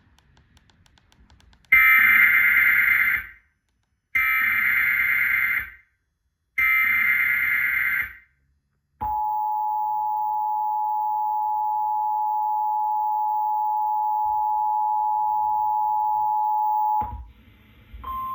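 Emergency Alert System tones: three harsh digital SAME header bursts of about a second and a half each, encoding the alert, then the two-tone 853/960 Hz attention signal held steady for about eight seconds before cutting off suddenly.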